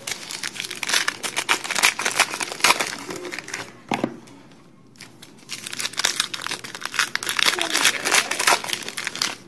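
Foil wrappers of 2012 Prestige football card packs crinkling loudly as they are handled and torn open, in two stretches with a short pause about four seconds in.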